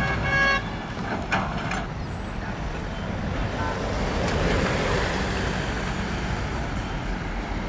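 Heavy diesel construction machinery running with a steady low rumble. A brief pitched tone sounds in the first half second, there is a short clatter a little after a second, and a rush of noise swells and fades around the middle.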